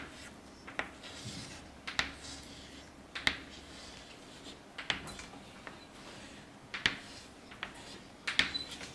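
Handwriting: faint, scattered scratches and taps of a pen or marker forming letters, one stroke every second or so.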